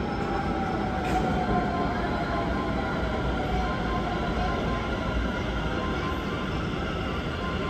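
Taoyuan Airport MRT commuter train pulling into the station behind platform screen doors, with a steady rumble and a whine that falls in pitch as it slows.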